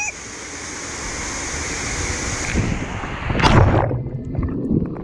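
Steady rushing hiss of water close to the microphone, then a loud splash about three and a half seconds in as the camera plunges underwater, after which the sound turns muffled with underwater bubbling.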